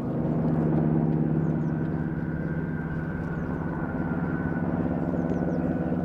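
Saab B17A's Twin Wasp 14-cylinder radial engine and propeller droning steadily in flight. The drone swells slightly about a second in.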